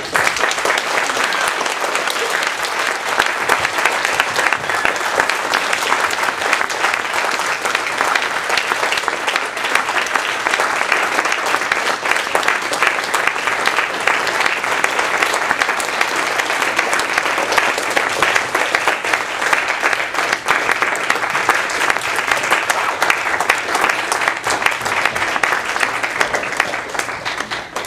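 Theatre audience applauding, a loud, dense, steady clapping that starts abruptly as the stage lights go out.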